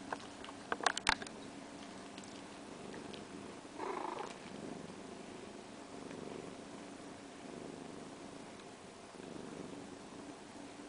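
Siberian cat purring steadily while her kittens nurse. There are a few sharp clicks in the first second and a brief louder sound about four seconds in.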